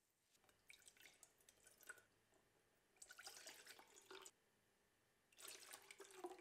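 Dark Kashmiri tea concoction poured from a ladle into a stainless steel saucepan: two faint splashing pours, about three and five and a half seconds in, after a scatter of faint drips and clicks.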